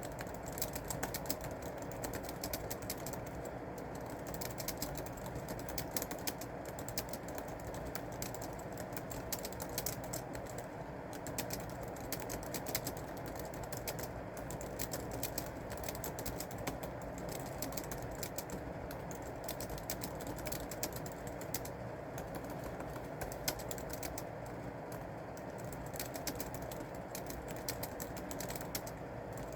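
Typing on a keyboard: a quick, uneven run of key clicks over a steady background hum.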